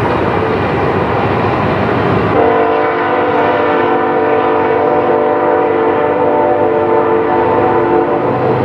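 Nathan Airchime multi-chime locomotive air horn sounding one long chord, starting abruptly about two and a half seconds in and holding for about six seconds, over the steady noise of the train.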